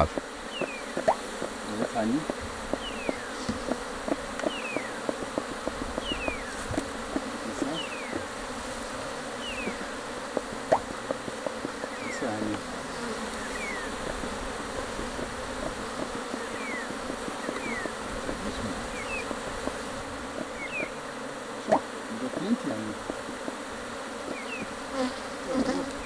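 Honey bees buzzing in a steady swarm around an opened hive, with scattered light clicks and knocks of wooden frames being handled. Faint short falling chirps repeat about once a second in the background.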